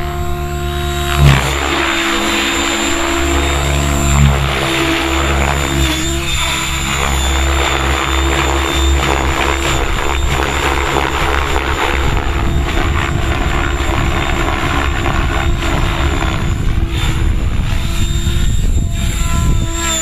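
Electric RC helicopter (Compass Atom 6HV with a Kontronik brushless motor) flying aerobatics: rotor blades whooshing with a steady high motor whine, mixed with wind buffeting the microphone. Two brief loud thumps about one and four seconds in.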